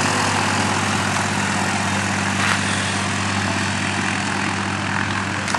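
Dornier Do 27's propeller engine running steadily at low taxiing power, its sound slowly fading as the plane rolls away over the grass.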